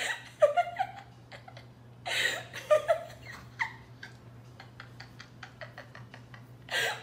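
A person giggling softly in a few short breathy bursts, followed by a scatter of faint light clicks.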